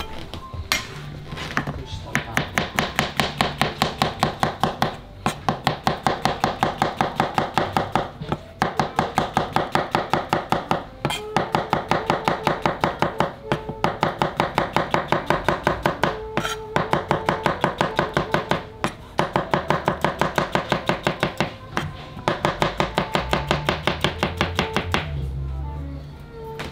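Chef's knife slicing button mushrooms on a cutting board. The blade knocks the board in a fast, even rhythm of about five strokes a second, in runs of a few seconds with short pauses between.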